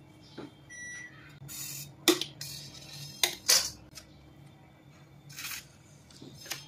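Metal palette knife and cake scraper clinking and scraping against a metal cake turntable while cream icing is smoothed: a few sharp clicks and short swishes.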